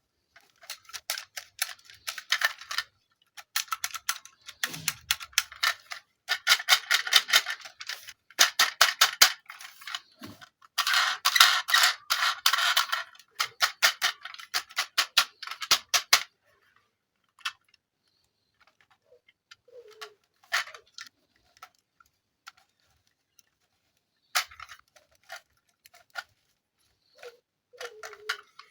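Plastic being handled: bursts of rapid crackling clicks for the first half, then scattered single clicks and light taps.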